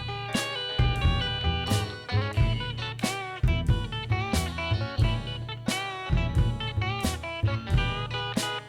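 Background music: an upbeat guitar-led track with a steady drum beat.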